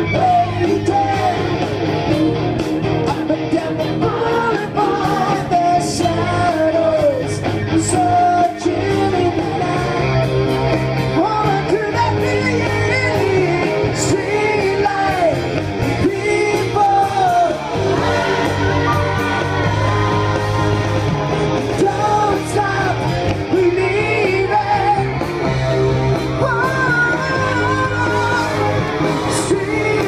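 Live rock band playing through a PA: a lead vocalist singing over keyboard and a steady beat, with shouts from the crowd.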